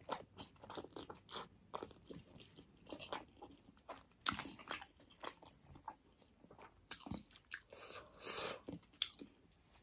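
Chewing of pork momo dumplings: a run of short, irregular mouth clicks and smacks, with a longer breathy sound about eight seconds in.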